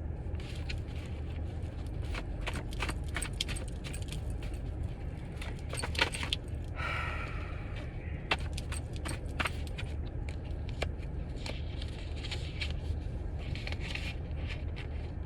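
Tarot cards being shuffled and handled: a busy run of quick flicking clicks over a steady low hum.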